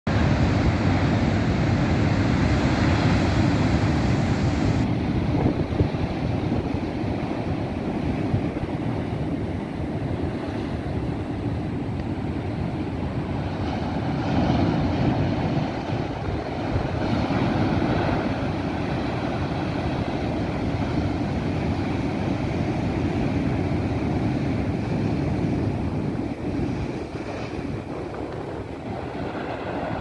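Large ocean waves breaking on a rocky shore, a continuous rush of surf that swells as sets break, mixed with wind buffeting the microphone.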